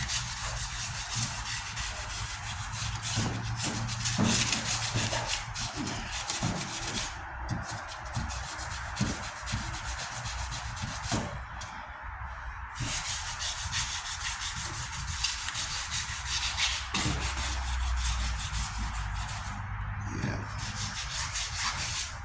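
Hand wet sanding of a painted steel truck tailgate: sandpaper on a sanding block rubbed back and forth over the panel with soapy water as lubricant, in steady, light strokes broken by a few short pauses.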